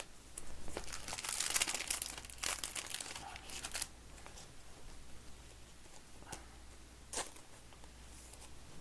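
Crinkly card-pack wrapping being handled and crumpled for about three seconds, followed by quieter handling with a couple of short clicks.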